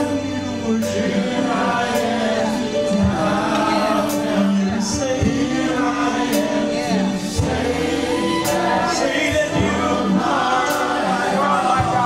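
Gospel worship song: a choir singing over instrumental backing, with sustained bass notes and sharp hits recurring about once a second.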